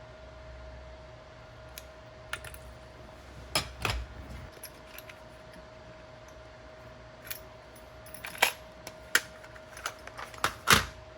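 Small hard objects clicking and clinking as they are handled, a dozen or so irregular taps, the loudest near the end, over a faint steady hum.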